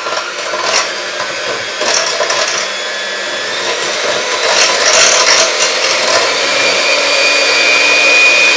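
Electric hand mixer running steadily, its beaters whipping a thin, runny batter in a glass bowl; a high motor whine comes through more clearly about six seconds in.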